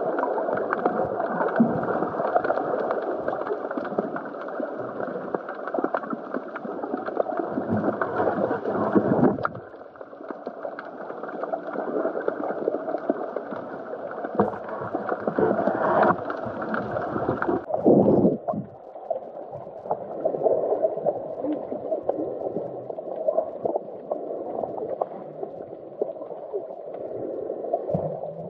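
Muffled underwater water noise picked up through a camera's waterproof housing: a continuous gurgling, sloshing rush. It drops in level about ten seconds in and again after a louder surge around eighteen seconds.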